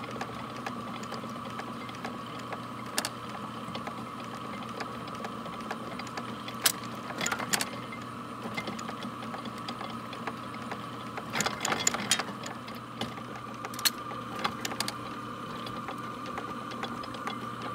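Early-1900s Deering grain reaper running, its gearing and sweeping rake mechanism giving a steady mechanical hum broken by irregular metallic clanks and clicks.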